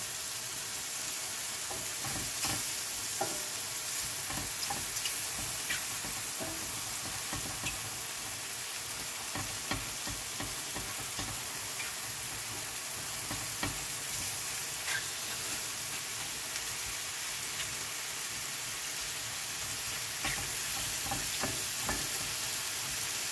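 Button mushrooms sizzling in butter in a stainless steel frying pan as they begin to brown, stirred with a wooden spoon that now and then clicks and scrapes against the pan.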